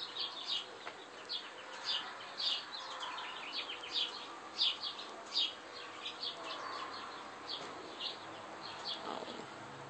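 Small birds chirping over and over, short high chirps about two a second at uneven spacing, some louder than others.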